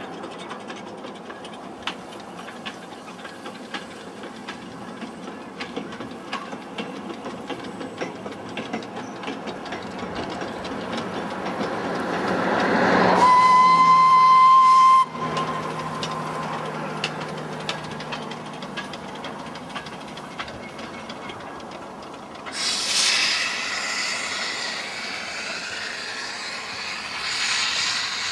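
Replica Mary Ann steam locomotive working along the line with a fast run of chuffs and clicks that grows louder, then its steam whistle sounding one steady note for about two seconds, cut off sharply about halfway through. A steady hiss sets in suddenly near the end.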